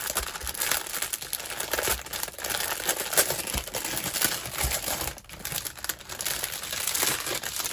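Small plastic bags of diamond-painting drills crinkling and rustling as they are handled, with a short lull about five seconds in.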